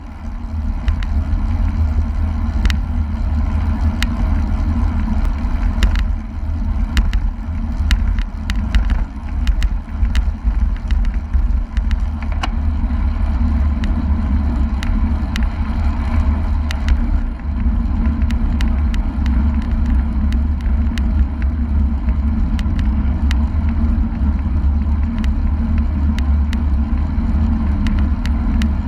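Heavy wind buffeting on a bicycle-mounted GoPro's microphone while riding at about 40 km/h, over a steady tyre hum on the road. Scattered sharp clicks and rattles come through the whole time.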